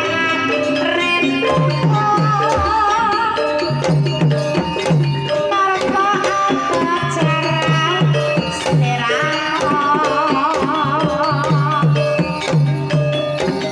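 Banyumasan gamelan music for tayub: a kendang hand drum keeps a steady rhythmic pattern under the ensemble, and a female sinden sings a wavering, ornamented melody twice, briefly near the start and again in the second half.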